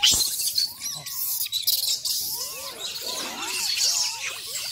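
Rhesus macaque troop feeding together, many monkeys giving short squeaky chirps and coos that overlap one another, over a steady high hiss. A sharp knock sounds right at the start.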